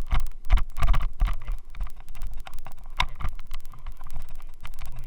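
Rapid, irregular rattling and clicking from an action camera vibrating in a loose helmet mount, picked up by the camera's own microphone over a low rumble. The noise comes from the helmet mount, not the camera.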